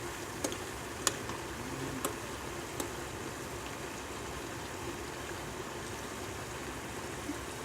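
Hot cooking oil sizzling steadily, with four short sharp pops in the first three seconds.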